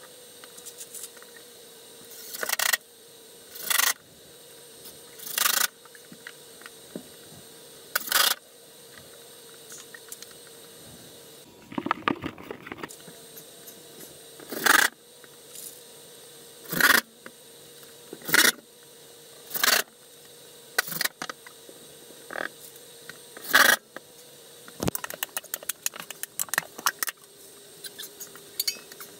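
Short bursts of a cordless drill driving screws to fix a drywall patch into the ceiling, repeated every second or two, with clattering of tools and a rapid run of clicks near the end.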